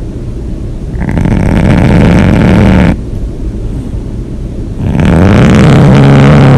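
A person snoring loudly, with two long snores of about two seconds each, about four seconds apart. Each snore is a rattling, pitched drone, and there is a quieter low breath sound between them.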